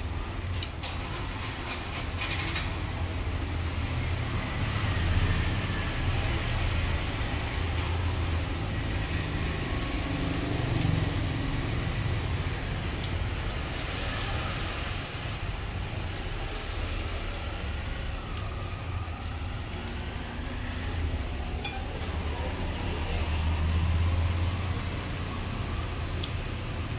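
Steady low background rumble that swells and eases, with a few light clicks near the start and again about two-thirds of the way through.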